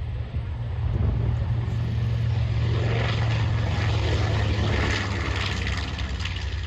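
Radial-engine warbird making a pass, its piston engines droning. The drone grows about a second in, stays loud through the middle and eases off near the end.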